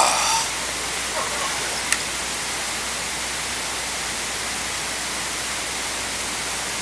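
Steady hiss of the recording's noise floor, with one faint click about two seconds in.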